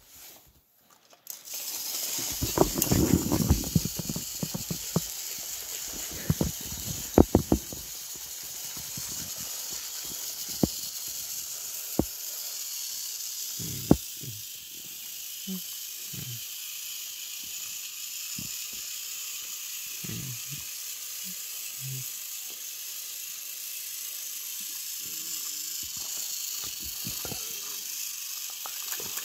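Battery-powered Thomas & Friends TrackMaster toy engines running on plastic track: a steady whirring hiss of their small motors and gears, starting about a second in. Knocks and clicks of the plastic toys and track pieces being handled come over it in the first several seconds, with a few sharp clicks later.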